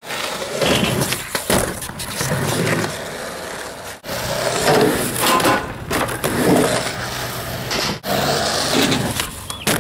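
Skateboard wheels rolling and scraping on a concrete skatepark surface, with a steady rumble and grind. It comes in three stretches, each cut off abruptly, about four and eight seconds in.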